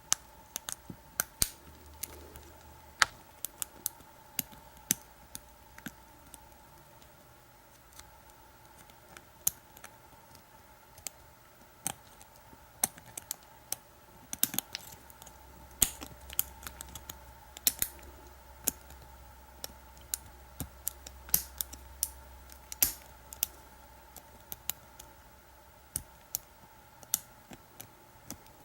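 Steel lock pick and tension wrench clicking in the keyway of an American Lock 5200 padlock during single pin picking: irregular sharp metallic clicks, a few to several a second, over a faint steady hum.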